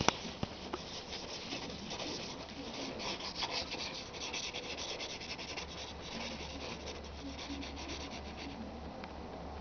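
A cat pawing and clawing at a plastic shower curtain, the curtain rubbing and rustling in scratchy bursts, busiest in the first half, with a couple of sharp clicks at the start.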